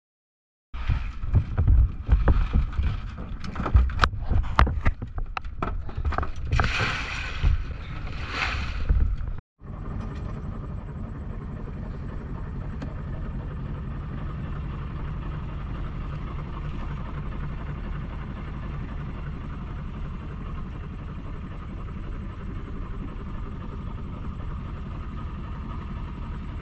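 Loud, irregular knocking and clatter with two short bursts of hiss. After a cut, a boat's engine runs with a steady low hum.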